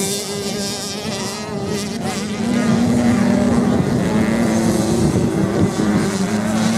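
Several off-road motorcycles racing on sand, their engines revving and running together in several wavering pitches. The sound grows louder about two and a half seconds in as the pack comes closer.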